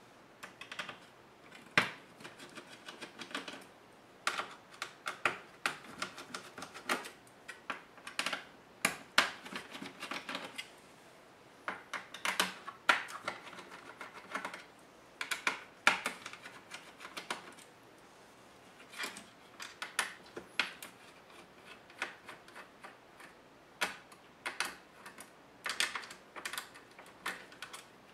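Laptop disassembly: irregular runs of sharp clicks and taps as the ASUS G73's parts are handled and worked with tools, broken by short pauses.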